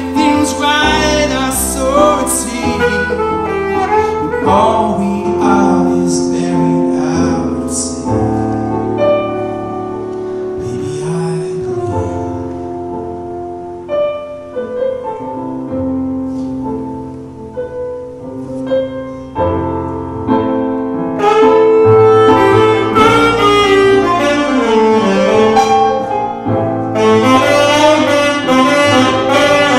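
Instrumental break with no singing: a saxophone plays melody lines over keyboard piano chords. The music eases off in the middle and grows louder about two-thirds of the way through.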